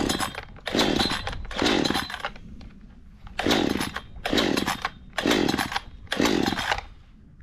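Parkside PBKS 53 A2 chainsaw being pull-started with the choke closed: about seven sharp pulls of the recoil starter cord, the 53 cc two-stroke engine turning over with each pull, with a pause of about a second after the third. The engine does not fire, which the owner later puts down to an idle set probably a bit too low.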